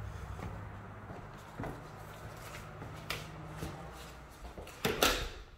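A door being handled as someone comes in from the deck: a few knocks and clunks, the loudest pair about five seconds in, over a low steady hum.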